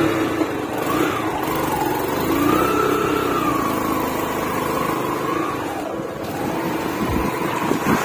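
Motorcycle engine pulling away and running under way, its pitch rising and falling with the throttle.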